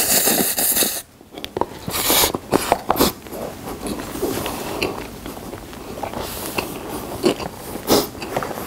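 A person slurping a mouthful of spicy stir-fried instant noodles, loud, cutting off abruptly about a second in. Then chewing the noodles, with irregular sharp mouth clicks that thin out towards the end.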